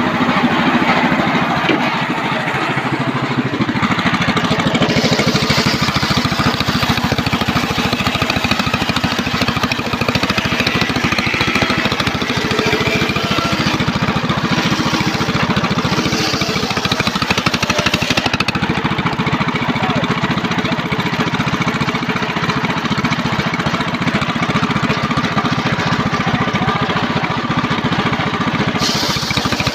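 Homemade circular saw bench running its large blade through a mahogany log, ripping it lengthwise into rafter timber. It sounds loud and continuous, and the tone shifts a few times as cuts start and finish.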